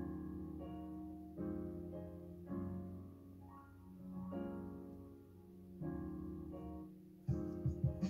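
Soft background piano music: slow chords, each struck and left to ring and fade. A sharper plucked part comes in near the end.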